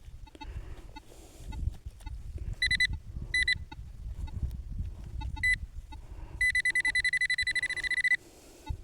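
Metal-detecting pinpointer beeping as it closes on a small metal target in the soil: a few short beeps, then a steady tone for about two seconds near the end as it sits right on the target. Low handling and wind rumble runs underneath.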